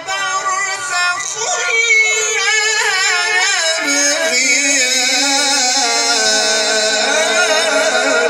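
Man's melodic Quran recitation (tilawat) into a microphone, one voice drawn out in ornamented, wavering runs; about four seconds in it settles into a long held note.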